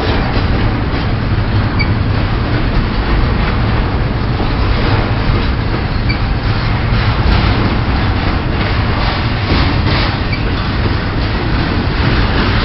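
Pan Am Railways freight train running by, a steady, loud rolling rail noise with no pause.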